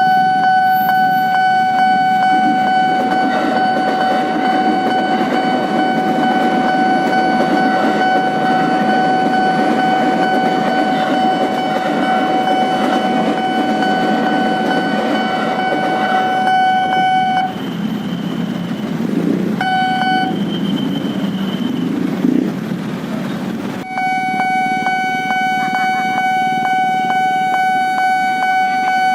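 Level-crossing warning alarm sounding as one steady tone while a KRL electric commuter train (ex-JR 205 series) rumbles past. The alarm stops about 17 seconds in, sounds again for a moment, then starts up again about 24 seconds in for the next train.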